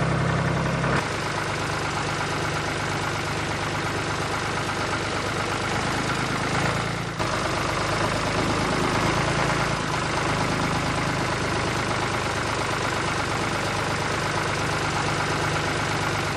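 A small motor running steadily with a low hum and a hiss, dropping a little about a second in and dipping briefly about seven seconds in.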